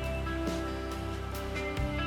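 Background music: a soft instrumental track with plucked guitar notes over a steady low bass.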